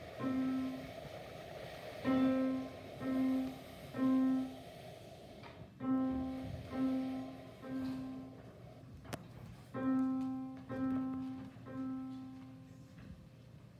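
Piano played slowly, one note at a time: the same note struck again and again, in groups of three with short pauses between, each left to ring and fade.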